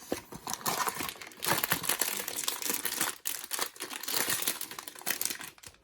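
Crinkling and rustling of blind-box packaging being handled and opened, a dense run of small crackles that eases off near the end.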